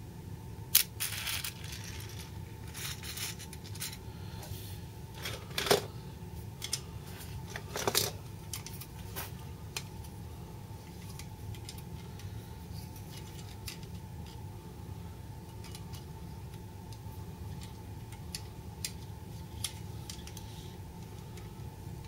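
Toy tractor being handled and set down on a hard floor: a few sharp clicks and knocks, the loudest about a second in and again around six and eight seconds in, then only scattered faint ticks over a steady low hum.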